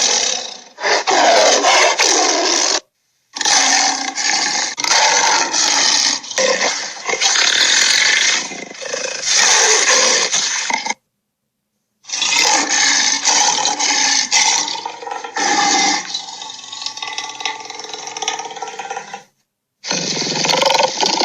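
Dragon roar and growl sound effects: long, rough, pitched roars in four stretches, each cut off abruptly into a moment of dead silence.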